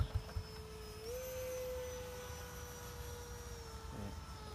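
Electric ducted fan of a 70 mm EDF RC jet whining steadily overhead as a thin, even tone. Its pitch steps up a little about a second in and eases back down near the end, over a low rumble.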